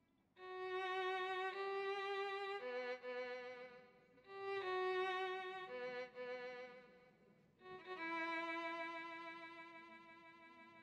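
Background music: a violin playing a slow melody of long held notes with vibrato, in three phrases, the last note fading away near the end.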